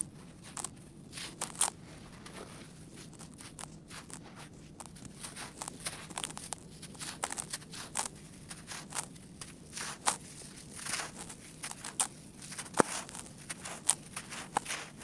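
Hands crumbling dry, gritty earth. Irregular soft crunches and grainy rustling come as a compacted lump breaks apart and loose grains pour through the fingers, with one sharper crackle late on.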